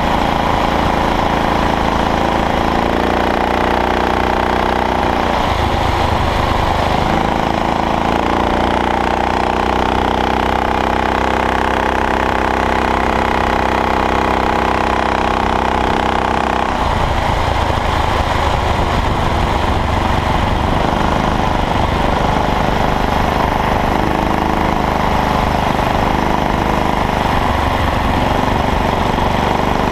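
Motorized bicycle's small engine running steadily under way. The note shifts about 5 seconds in, holds smoother through the middle, and turns rougher from about 17 seconds on.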